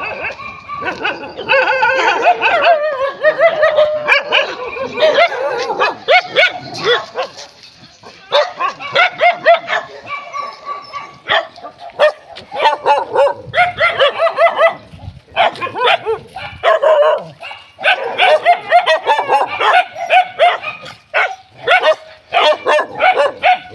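Dogs barking and yelping in short, closely packed calls, with a couple of brief lulls.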